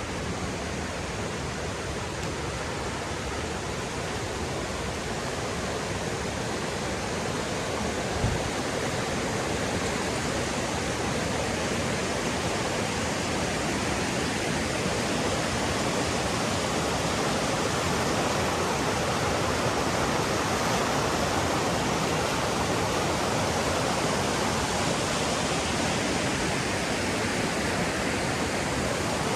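Mountain stream water rushing steadily over rocks and rapids. A single short low thump sounds about eight seconds in.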